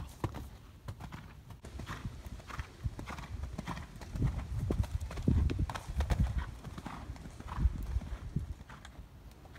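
Horse cantering on a sand arena, its hooves beating out a steady stride rhythm of about two strides a second. The hoofbeats are heavier and louder through the middle.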